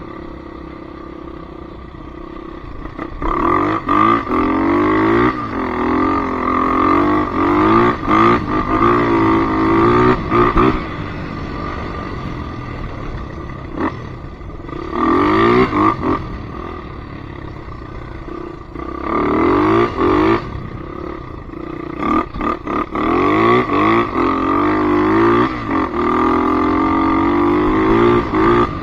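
Polaris Predator 500 ATV's single-cylinder four-stroke engine, its pitch rising and falling under throttle in repeated bursts, with steadier, quieter stretches between them.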